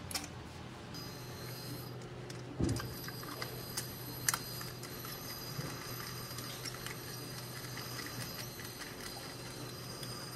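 Scattered light clicks and taps of hands working aluminium rail and plate parts, with a low thump a little under three seconds in, over a steady low hum.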